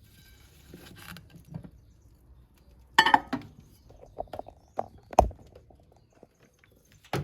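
Potatoes being turned and handled on a dish: scattered clicks, clatters and knocks of the plate and utensil, the loudest a few sharp knocks about three to five seconds in. Near the end comes one loud clack as the microwave door is shut.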